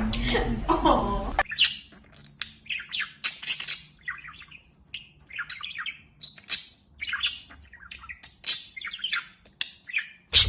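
Pet bird giving a quick run of short chirps and squawks, a few a second, after the sound cuts from music and voices about a second and a half in.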